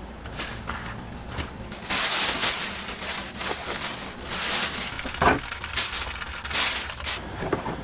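A knife cutting through crispy roast meat, crunching and crackling in uneven bursts with a few sharp clicks.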